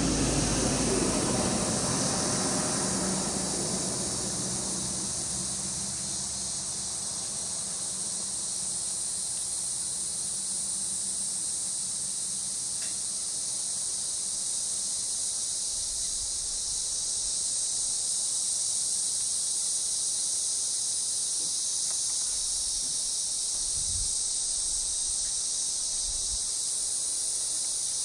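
Steady, high-pitched chorus of insects buzzing continuously in tropical bush, with a low rumble that fades out over the first few seconds.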